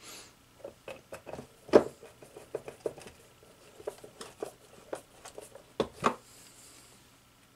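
Small clicks and taps of steel screws and a screwdriver being handled against the plastic base of an upright vacuum as the screws are put back. There is a sharper knock about two seconds in and two more close together about six seconds in.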